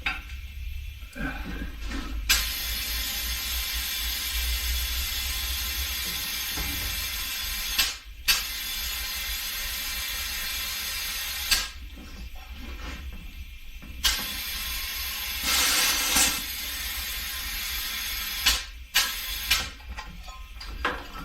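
Compressed air hissing in several long bursts of a few seconds each, every one starting and stopping abruptly with a click.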